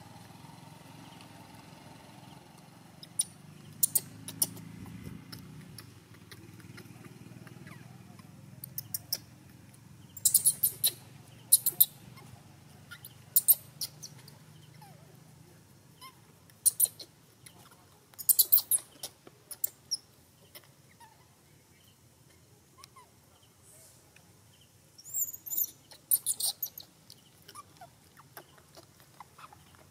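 Baby monkey squeaking: scattered clusters of short, very high-pitched squeaks, some bending in pitch near the end, over a faint low hum that fades out about halfway through.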